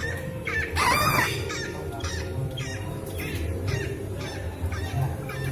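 Cockatoo screeching: one loud, harsh scream about a second in, among a steady run of short, high squawks.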